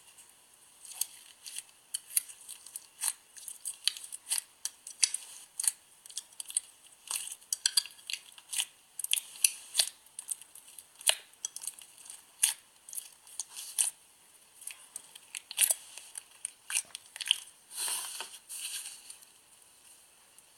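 Clear slime with plastic charms mixed in being kneaded and squeezed by hand: a run of irregular sharp clicks and pops, with a few longer squelchy crackles.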